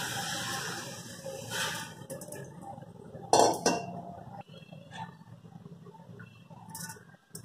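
Kitchen utensils clinking and knocking against an aluminium cooking pot, with two sharp loud clinks about three and a half seconds in and a few lighter knocks after. A soft hiss fades out over the first two seconds.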